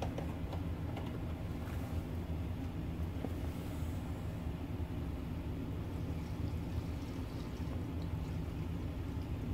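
Steady low hum with a rumble under it, with a few faint clicks in the first second.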